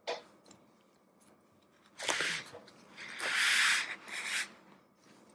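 Handling noise from work on an opened laptop: a sharp click at the start, then two bursts of rustling, scraping noise, the second longer and louder.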